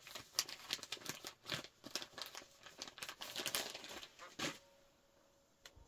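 A baby-wipe packet and wipes being handled: a run of crinkling and rustling that stops about four and a half seconds in.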